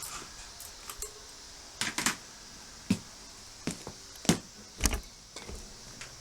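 Metal tools clinking and knocking during work on an off-road motorbike's front wheel: about eight separate sharp clicks and taps at irregular intervals, the loudest about four seconds in.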